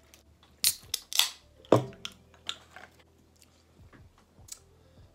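Soda being drunk from aluminium cans: a handful of short, sharp gulps, sips and breaths between quiet gaps.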